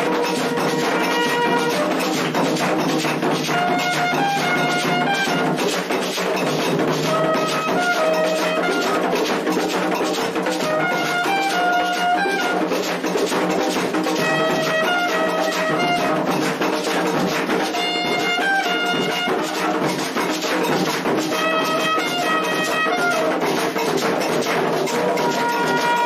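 A trumpet (clarim) plays short phrases of a few held notes, repeated every few seconds, over steady ritual drumming for the entrance of the orixás.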